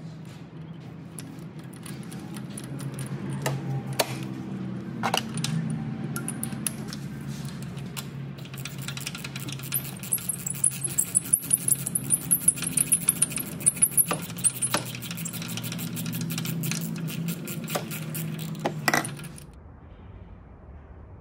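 Ratchet and 5/8-inch spark plug socket working the spark plugs out of a VW 2.5L five-cylinder engine: scattered metallic clicks and clinks, with a run of sharp clicks about three a second about halfway through, over a steady low hum. The sounds stop suddenly near the end.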